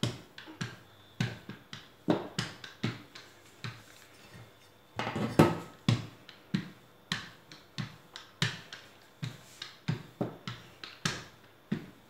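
Small handled dough roller rolling out dough on a floured silicone baking mat: a run of short knocks and taps as the roller is pushed back and forth and set down, about two or three a second, with a brief lull about four seconds in and the loudest knocks just after.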